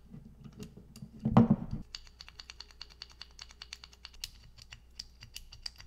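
Spark plug puzzle box being handled: a few scattered clicks, a louder thump about a second and a half in, then a fast, even run of light metallic clicks, about seven a second, for some four seconds as the spark plug is twisted in its wooden frame.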